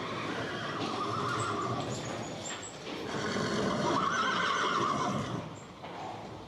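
A horse neighing, two long whinnies in a row, the second louder.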